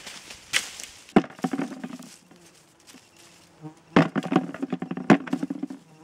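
A long pole striking the branches of a wild apple tree: sharp knocks about a second in, and again near four and five seconds. Each knock is followed by a rattle of twigs and leaves and falling wild apples.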